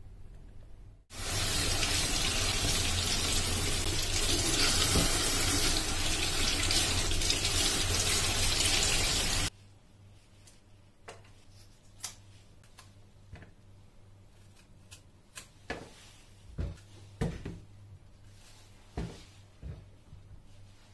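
Kitchen tap running hard into a stainless steel sink for about eight seconds while vegetables are washed, then turned off abruptly. After that, scattered light clicks and scrapes as the vegetables are handled and peeled over the sink.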